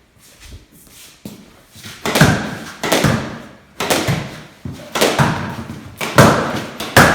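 A run of loud, sharp knocks or thuds, roughly one a second, starting about two seconds in after a quieter stretch.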